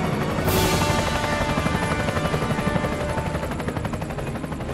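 Helicopter rotor chop under background music, with a loud rushing whoosh about half a second in that fades away over the next second.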